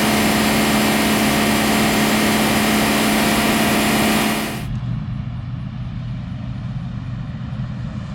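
Farm machine engine running steadily, with a loud rushing hiss over it that cuts off abruptly about four and a half seconds in, leaving the engine's lower, steady hum.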